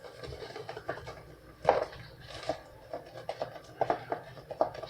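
Kitchen containers and utensils being handled while seasoning a dish: a string of short taps and clicks, with one louder knock a little under two seconds in.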